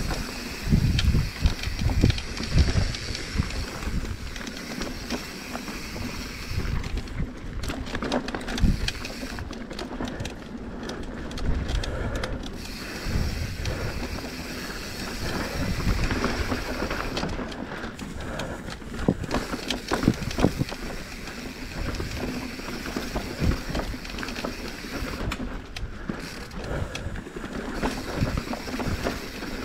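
Mountain bike riding over a rough singletrack trail: tyre and trail noise with frequent irregular knocks and rattles from the bike over bumps, and wind on the microphone.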